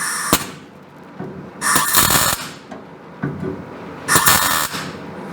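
Welder making three short tack welds, each a burst of crackling under a second long.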